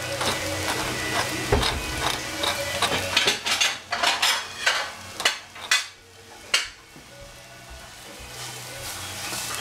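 A spoon stirring shredded cabbage in a stainless steel saucepan, clattering and scraping against the pan over a light sizzle. The clatter comes thick and uneven, then stops about six and a half seconds in.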